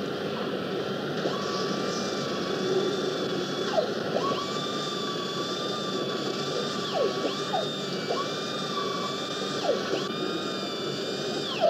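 Air-powered nut runner on an engine assembly line whining in several runs of one to three seconds, each ending in a short falling pitch as it winds down. Steady factory machinery hum runs underneath.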